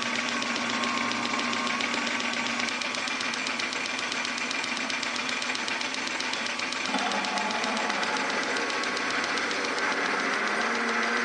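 Metal lathe running with a twist drill in the tailstock cutting into a spinning sleeve, later a 3/4-inch bit drilling a clearance hole: a steady mechanical rattle with a shift in tone about seven seconds in.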